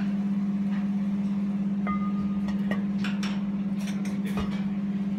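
Steady low electrical hum with light clattering in the background. About two seconds in there is a brief, bell-like ringing clink.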